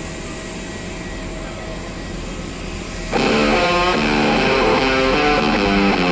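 Steady engine and vehicle noise of an airport apron, with a faint hum. About three seconds in, guitar-led background music starts suddenly and is the loudest sound from then on.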